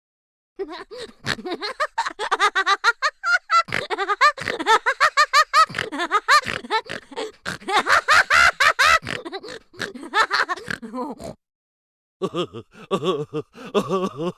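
Cartoon laugh sound effects: voiced laughter in quick, pulsing bursts, one long run of laughing that stops about 11 seconds in, then another laugh starting a second later.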